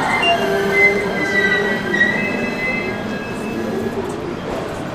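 JR West 225 series electric train moving slowly along the platform, with steady high-pitched squealing and whine from its wheels and running gear that dies away about three to four seconds in.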